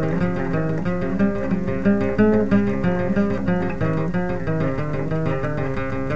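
Instrumental passage of an Algerian chaabi piece: an acoustic guitar picking a busy, quickly moving melody over lower sustained notes.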